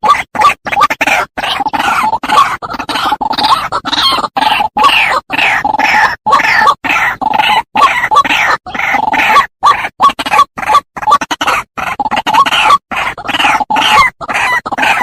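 White-breasted waterhen (ruak-ruak) calling loudly: short harsh notes repeated quickly, about three a second, in a lure-call recording used to draw the birds in.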